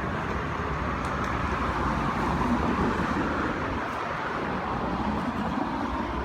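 Steady outdoor street and traffic noise, an even rush of passing vehicles with low rumble.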